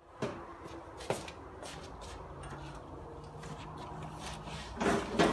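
Knocks and scraping of the flexible dust-extractor hose and its fittings being handled and taken off a combination jointer-planer. There are two sharp knocks in the first second and a louder clatter near the end.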